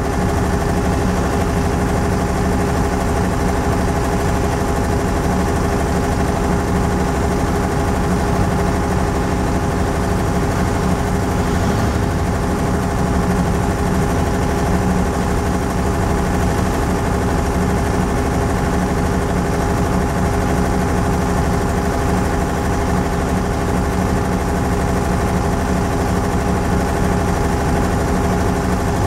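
An engine idling with a steady hum that does not change in pitch or loudness.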